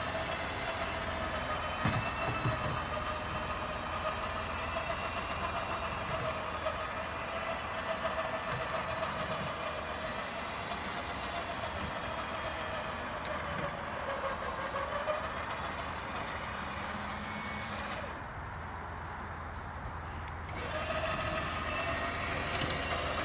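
Cheap 9,500 lb electric winch motor whining steadily as it winds in its cable under load, dragging the vehicle over rocks; the whine sags in pitch about two thirds of the way through as the load rises, then stops for a couple of seconds near the end and starts again. A steady low engine hum runs underneath.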